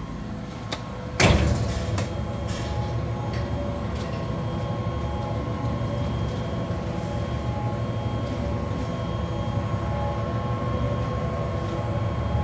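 AMFEC 510 dual-shaft paddle blender, driven by electric motors, starting in mix mode about a second in and then running steadily with its paddles turning in an empty trough. It makes a steady motor hum with a constant whine.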